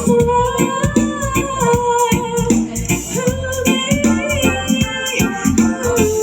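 Loud, upbeat music with a fast, steady run of sharp percussion strokes under a held, gliding melody line that may be sung.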